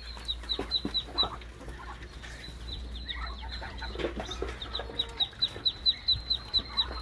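Poultry calling: clucking, with quick runs of high, falling peeps at about five or six a second, one near the start and another from about halfway through.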